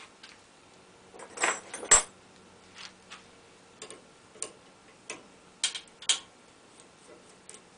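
Scattered clicks and knocks of the pen blank, jig and tools being handled at the lathe, with the sharpest knock about two seconds in, over a faint steady hum.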